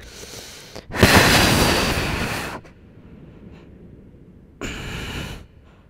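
A woman's long, loud exhale of effort, heard as a rushing noise on a close microphone as she lifts into a headstand, slowly fading; a second, shorter and quieter breath follows near the end.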